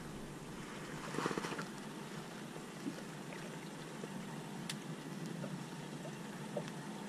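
Sea water lapping and sloshing gently against the side of a drifting boat, with a light knock or two.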